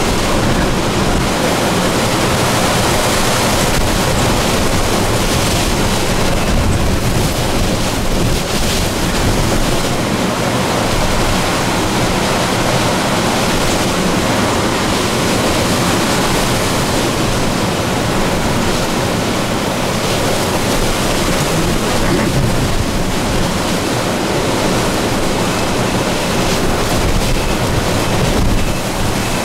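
Hurricane wind and rain making a loud, steady rush of noise, with the wind buffeting the microphone.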